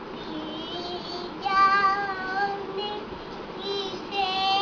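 A young girl singing a Bengali song, with long, drawn-out notes.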